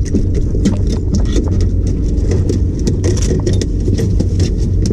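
Steady low rumble of wind and boat noise on a small fishing boat, with many short clicks and taps as fishing line and tackle are handled after landing a small shark.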